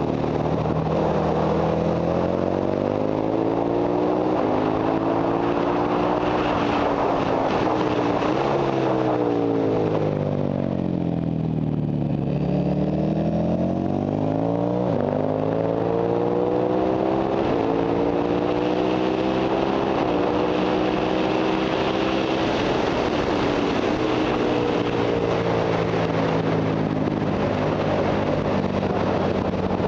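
Ducati Monster 1100 EVO's air-cooled V-twin heard from on board at track pace, its revs climbing and falling through gear changes and braking for corners, with wind rush over the microphone.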